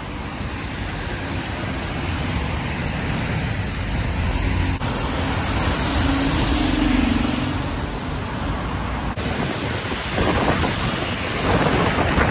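Road traffic on wet streets: tyres hissing on wet tarmac and engines running, with a low engine note swelling about halfway through. Wind buffets the microphone in the last few seconds, and the sound changes abruptly twice.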